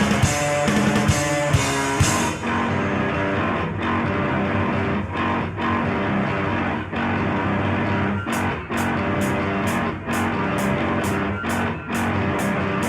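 Rock music led by guitar. A bright high wash drops out about two seconds in, and from about eight seconds a crisp high tick comes in, repeating roughly two and a half times a second.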